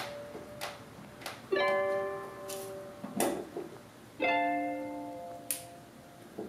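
Background music: sparse plucked-string notes and chords, each struck sharply and left to fade, with light ticks between them.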